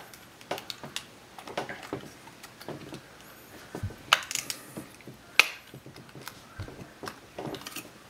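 Scattered light clicks and taps of a clear plastic case being handled and pried open to take out a replacement drive, with two sharper snaps about four and five and a half seconds in.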